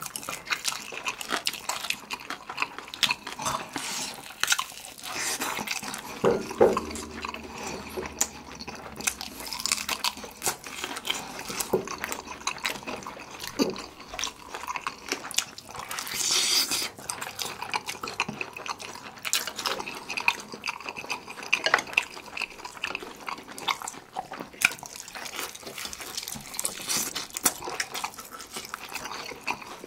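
Close-up eating sounds of two people chewing glazed fried chicken drumsticks and jjapaghetti noodles: wet chewing, lip smacks and sticky clicks, one after another. There is a longer noisy stretch about sixteen seconds in.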